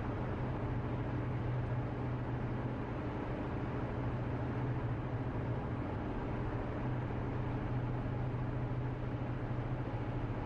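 Steady road noise of a car cruising at highway speed, heard from inside the cabin: a constant low drone with tyre hiss over it, unchanging throughout.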